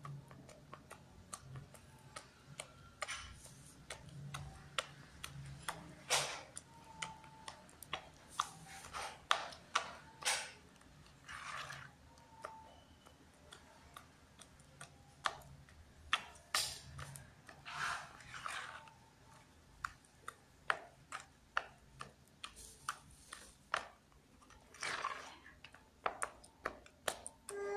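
A hand mixing and squeezing bakso paste in a plastic bowl: an irregular run of clicks and squelches as the fingers work the dough and slap against the bowl.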